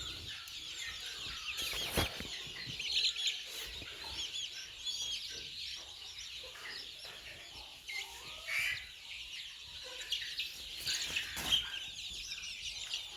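A shedful of young country chicks cheeping together, a dense, continuous chorus of short high-pitched peeps with the odd cluck. A single knock sounds about two seconds in.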